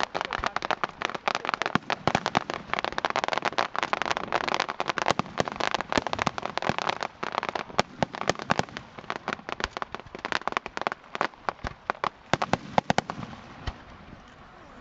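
Aerial fireworks bursting close by: a dense, rapid crackle of bangs and pops that thins out to scattered reports over the last few seconds.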